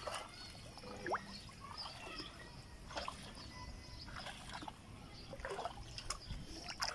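Legs wading through shallow muddy water, sloshing and splashing with each irregular step, about one every second or so.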